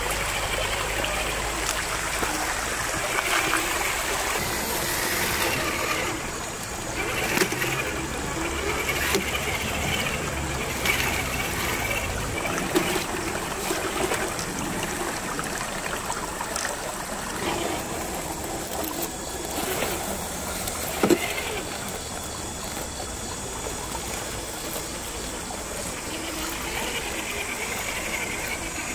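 Shallow creek water trickling over rocks, with the electric motor and gears of a 1/10-scale Traxxas TRX-4 crawler whirring in spurts as it climbs over rock. Occasional sharp clicks and knocks of the truck on stone; the loudest comes about two-thirds of the way through.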